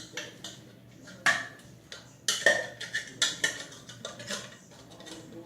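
Sticky homemade slime of laundry detergent and glue being squeezed and pulled by hand, making irregular wet clicks and smacks, the loudest a little over a second in and near the middle.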